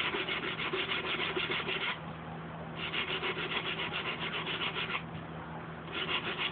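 Hand sanding with a sanding block and about 120-grit sandpaper on cured flowable body filler putty, in three runs of quick back-and-forth strokes with short pauses between.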